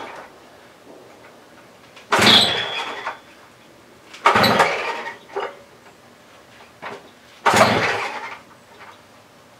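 Stihl TS400 cut-off saw's two-stroke engine being pull-started on choke: three hard yanks of the recoil starter, each a second or so and fading out, without the engine catching.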